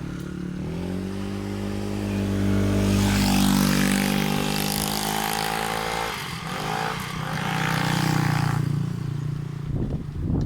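Motor vehicle engines passing close by, the sound swelling twice: once about three seconds in and again about eight seconds in.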